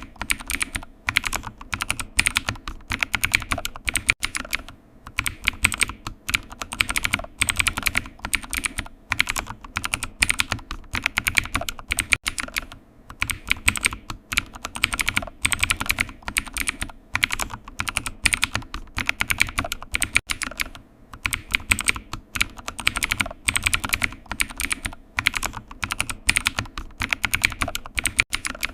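Computer keyboard typing: a steady stream of quick key clicks in bursts, with short pauses now and then.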